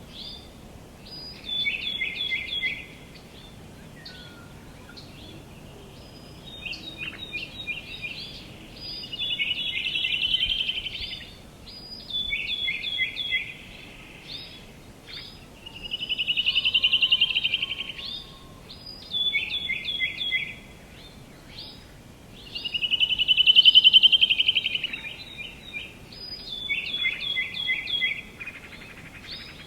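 Songbirds singing: short phrases of quick, repeated notes alternating with louder, longer trills that swell and fade, a new phrase every few seconds, over a faint steady outdoor hiss.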